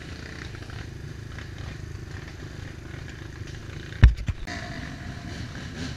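Dirt bike engine idling with a steady low rumble. About four seconds in there is a sharp, loud knock, followed by a smaller one just after.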